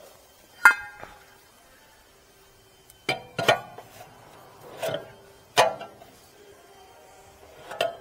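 BMW F10 rear brake rotor clinking and clanking as it is handled and slid onto the wheel hub: about six sharp metallic knocks, the first one ringing briefly.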